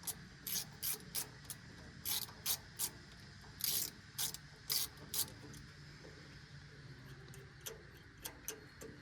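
Half-inch-drive socket ratchet clicking in short irregular runs while loosening the saw bar's mounting nuts. The clicks thin out to a few fainter ones near the end.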